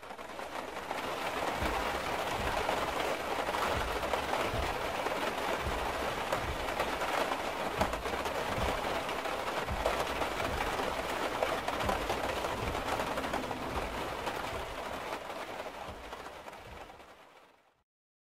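Heavy rain beating on a car's roof and windows, heard from inside the car: a steady hiss with scattered low thuds. It fades out near the end.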